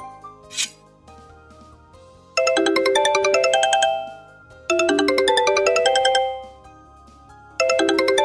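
A mobile phone ringtone: a short, quick melodic phrase of bright notes, played three times with a gap of about a second between repeats. It starts about two seconds in, after the previous ringtone fades out.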